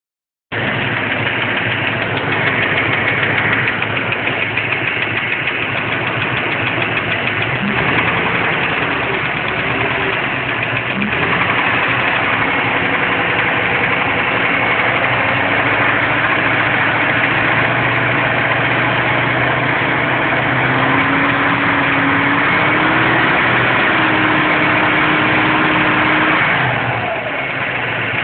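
Ford Bronco's small-block Windsor V8 idling steadily with a ticking running through it. The owner cannot tell its cause and suspects a lifter, a bent pushrod, a leaking header gasket or the pistons.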